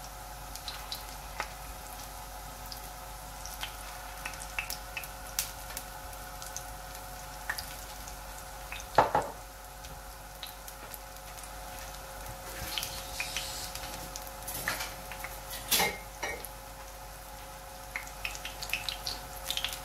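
Gram-flour fritters (phulkiyan) frying in hot oil on a flat iron griddle: a steady sizzle with scattered crackles and pops of spitting oil, the sharpest pop about nine seconds in, over a steady hum.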